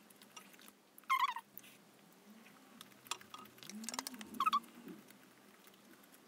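A short-haired chihuahua whining in two short high squeaks, one about a second in and one past four seconds, over scattered soft clicks of chopsticks and eating.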